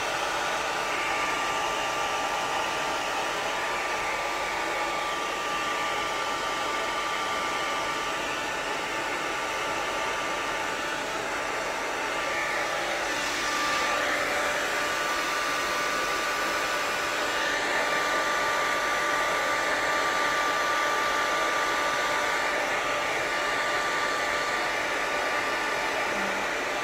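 Handheld hair dryer with a diffuser attachment running steadily while drying wet curly hair: an even rush of air with a thin steady whine on top, a little louder from about halfway through as the dryer is moved.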